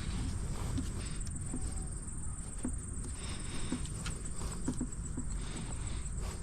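Scattered light clicks and taps from hand tools and parts being handled in a car's engine bay, over a steady low rumble and a faint steady high whine.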